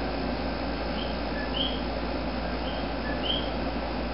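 A small animal chirping in an even, repeating pattern: a short high chirp followed by a brighter one, about every second and a half, over a steady hiss and low hum.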